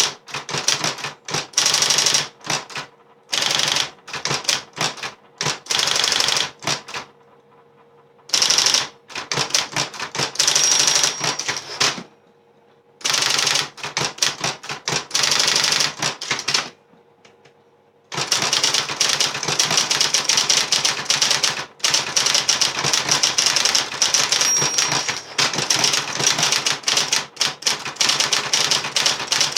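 Adler 131f electric typewriter typing in quick runs of key strikes broken by short pauses, then in a long unbroken run through the last third. The machine's motor hums faintly underneath.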